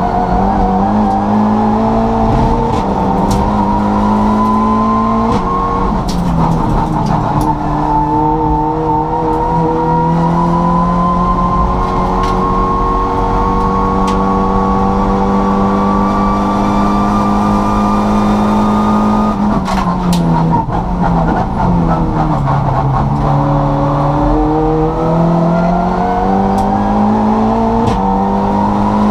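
Turbocharged Volkswagen Polo race car engine heard from inside the cabin at full effort. The revs climb, dip sharply at quick gear changes, then rise slowly for a long stretch. About two-thirds through they fall away in steps as the car comes down through the gears, then climb again with further quick upshifts near the end. Occasional sharp clicks sound over the engine.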